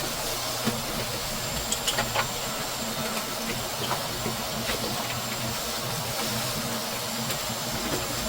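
A steady rush of air from a cleaning tool working over the refrigerator's dust-clogged parts, with a low hum underneath and scattered light ticks.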